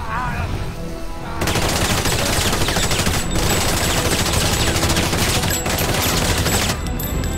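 A sustained blast of rapid-fire weapon noise, a dense crackling barrage that starts about a second and a half in and cuts off suddenly near the end.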